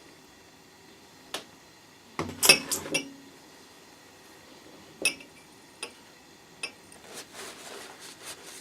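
Hard objects being handled and set down: a single click, then a quick cluster of sharp metallic clinks about two to three seconds in, the loudest part. Three more single clinks follow a second or so apart, then a softer stretch of scraping or rustling near the end.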